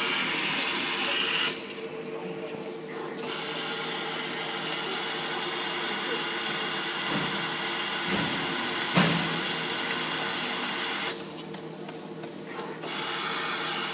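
Automatic vinyl roll slitter running, the spinning roll and circular cutting blade making a steady whirring hiss over a motor hum. The hiss drops away twice, for about a second and a half each time, and there is one short knock about nine seconds in.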